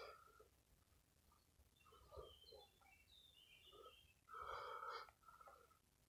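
Mostly near silence with a man's faint breathing as he exercises, and one louder breath lasting well under a second, about four and a half seconds in.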